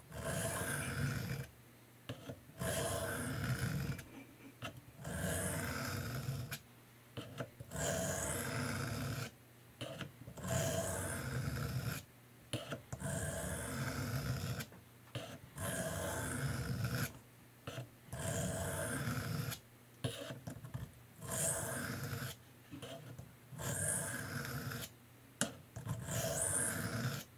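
Steel knife blade being stroked across a 300-grit diamond sharpening plate wet with soapy water: a repeated scraping rasp, about one stroke every two seconds, each lasting a second or so. Light pressure, grinding one side of the edge to raise a burr.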